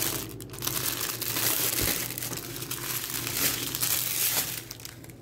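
Small plastic bags of rhinestone drills crinkling and rustling as they are handled and sorted, with a short lull about half a second in and a fade near the end.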